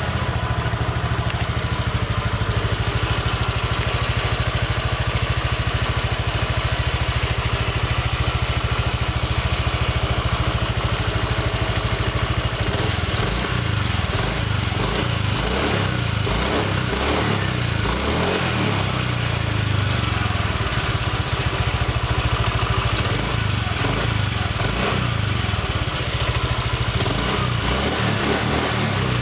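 Honda Vario 125 PGM-FI scooter's single-cylinder engine idling steadily, running on a new aftermarket ignition coil and NGK spark plug; the owner hears it a bit noisier than on stock parts but without the 'snore' the model is known for at idle. The idle wavers a little through the middle stretch.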